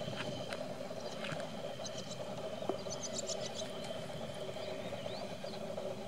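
Outdoor evening ambience: a steady drone from a chorus of calling animals, with short high chirps and calls scattered through it, most of them a little past the middle.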